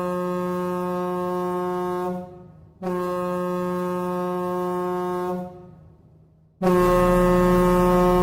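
Ice hockey goal horn blowing three long blasts of about two and a half seconds each, with short gaps between them; the third blast, about seven seconds in, is louder and still sounding at the end.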